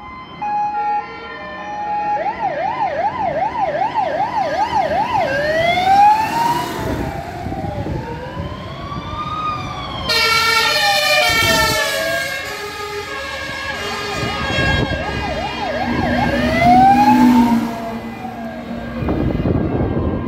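Fire engine sirens on an emergency run, several overlapping, switching between a fast yelp and a slower rising and falling wail, over the rumble of the trucks' engines. A horn blasts for about two seconds around the middle.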